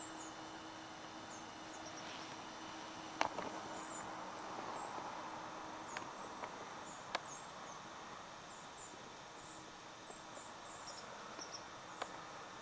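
Quiet woodland ambience with many short, high chirps from small birds or insects. A faint low steady hum runs underneath, and a few sharp clicks or snaps come through, the loudest about three seconds in.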